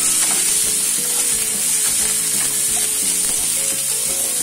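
Chopped onions, garlic and ginger sizzling in a little oil in a nonstick kadhai, stirred with a wooden spatula: a steady high hiss of frying, with the pieces shuffling in the pan as they are turned.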